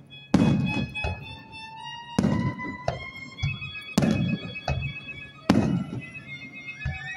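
Aerial firework shells bursting: four booms, about two seconds apart, each trailing off, with background music playing underneath.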